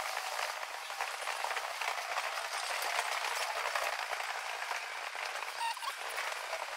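Footsteps and a steady crackling rustle of clothing against a body-worn camera while walking along a paved street.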